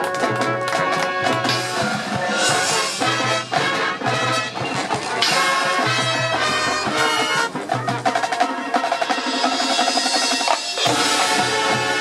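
Marching band playing: brass and woodwinds over a drum line and front-ensemble percussion, with sharp percussion strikes. About eleven seconds in the music changes abruptly into a new section.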